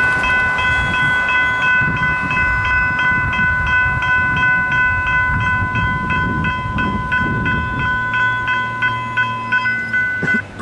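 Railroad grade-crossing bell ringing rapidly and loudly while the crossing gates lower, then cutting off abruptly once the gates are down.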